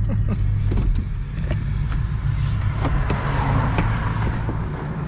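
A motor vehicle's engine running steadily with a low hum, with scattered light clicks and a swell of road noise midway.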